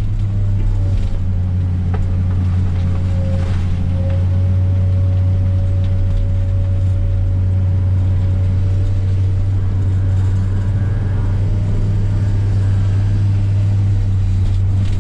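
Heavy earthmoving machine's diesel engine running steadily under throttle, a deep even drone with a thin steady whine above it.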